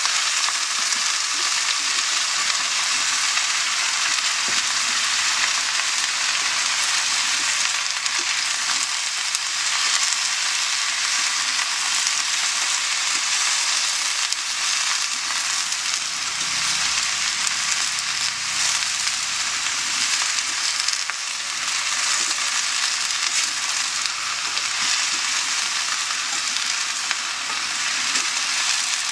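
Chopped green beans sizzling steadily in hot oil in a steel wok over a wood fire while they are stirred.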